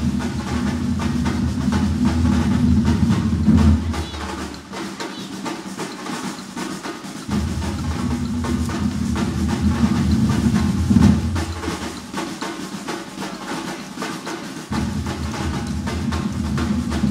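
Street percussion ensemble drumming in a fast, dense beat on large bass drums and lighter drums. The deep bass drums drop out twice for a few seconds, leaving the lighter drumming.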